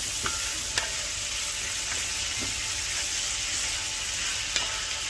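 Red onion, carrots and celery sizzling as they caramelize in a cast-iron skillet, stirred with a wooden spoon that knocks against the pan a few times.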